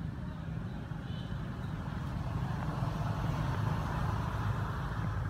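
Steady low rumble of outdoor background noise with a faint hiss, swelling a little about halfway through.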